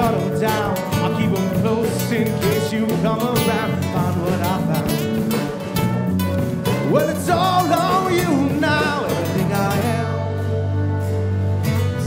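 Live acoustic band: strummed acoustic guitars and an electric bass, with a man singing lead. Near the end the strumming drops away briefly under a held low chord.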